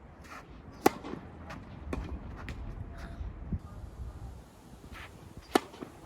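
Tennis rally: a racket strikes the ball with a loud crack twice, about a second in and near the end. Fainter knocks between them are the ball bouncing, the far player's hits and shoes on the court, over a low rumble of wind on the microphone.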